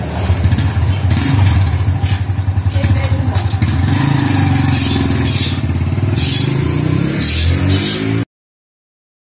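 Small single-cylinder Honda motorcycle engine running, its revs rising near the end as it pulls away with two riders. The sound cuts off suddenly about a second before the end.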